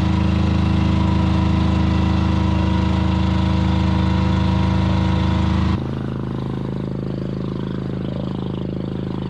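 Inboard engine of a small wooden fishing boat running steadily under way, a low even drone with the wash of the wake behind it. About six seconds in the sound drops abruptly and becomes duller, the engine still running.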